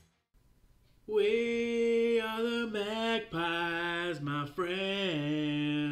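A man singing unaccompanied, starting about a second in: long held notes in a few phrases, like a wordless chant.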